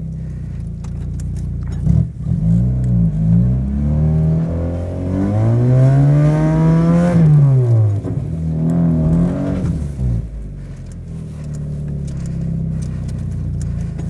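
First-generation Mazda Miata's four-cylinder engine revving while the car is stuck in deep snow, trying to reverse out. A few short blips, then one long rev that climbs and falls back about midway, a shorter rev after it, then a lower steady run.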